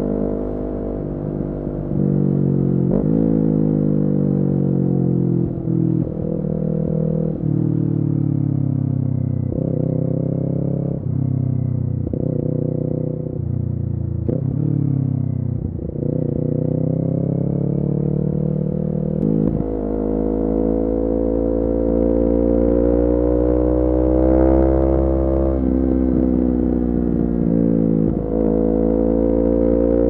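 Kawasaki Ninja 400's parallel-twin engine through an Akrapovic full-system exhaust, under way: its pitch rises and falls again and again with short breaks at the gear changes over the first twenty seconds, then runs steadier, climbing gently, toward the end.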